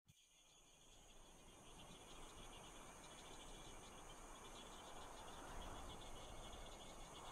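Faint crickets chirping steadily over a hiss of open-air ambience with a low rumble underneath, fading in from dead silence and growing louder over the first few seconds.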